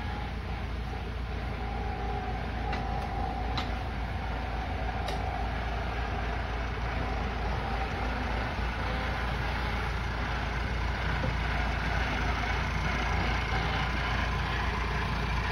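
Massey Ferguson tractor engine running steadily as it pulls a loaded trailer, growing gradually louder as it draws closer.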